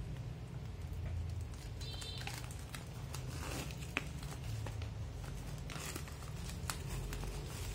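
Clear plastic shrink-wrap crinkling as it is peeled off a Blu-ray box set, with scattered crackles and one sharp click about four seconds in.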